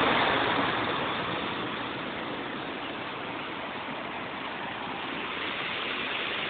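Swollen, muddy floodwater rushing down a stream in a steady rush, loudest at first and easing a little over the first two seconds.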